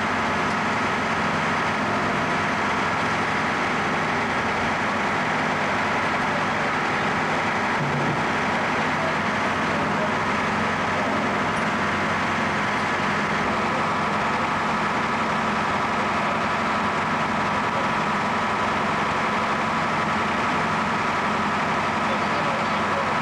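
A fire truck's engine running steadily, a constant drone with a steady hum that neither rises nor falls.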